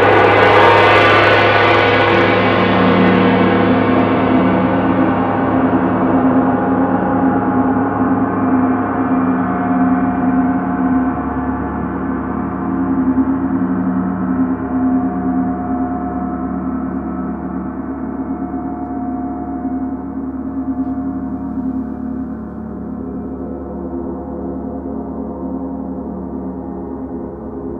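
Gongs played with soft mallets: a loud stroke right at the start, then a long, dense wash of many ringing tones that fades slowly, the bright upper tones dying away first while low tones hum on. Some tones pulse slowly, and small swells mark softer strokes that keep the gongs sounding.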